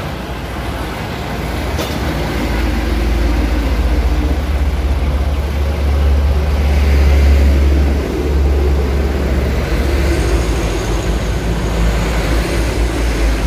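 Diesel truck engine idling: a steady low rumble that grows louder a few seconds in and dips briefly about two-thirds of the way through.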